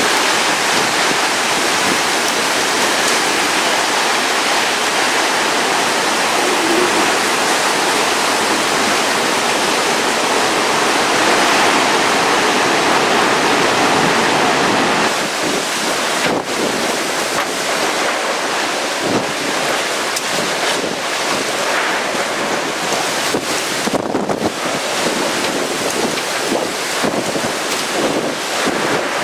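Hurricane eyewall winds roaring and buffeting the microphone. The roar is steady for about the first half, then turns gusty, surging and dropping in quick pulses.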